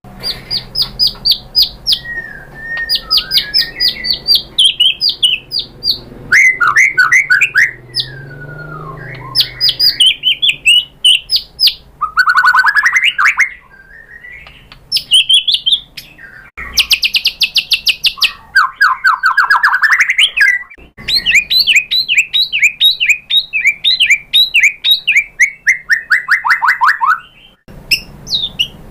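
White-rumped shama (murai batu) singing a loud, varied song: fast runs of repeated notes, trills and sliding whistles in phrases separated by short pauses.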